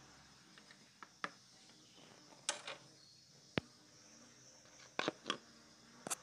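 Hand handling under the bonnet: a handful of short, sharp clicks and knocks of plastic and metal at uneven intervals, as the oil filler cap on the engine's valve cover is taken off and a funnel is set in the filler hole.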